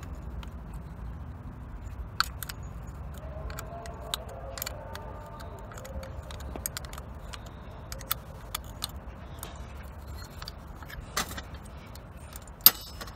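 Small metal parts of a starter motor clicking and clinking as they are loosened and handled by hand, in scattered sharp taps. A single sharp knock near the end is the loudest. A low steady hum runs underneath.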